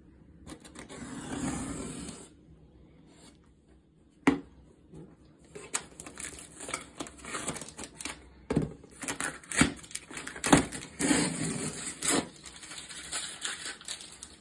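A kitchen knife cutting and scraping through packing tape on a cardboard box, with irregular scratches, taps and rustles of cardboard, and a sharp knock about four seconds in.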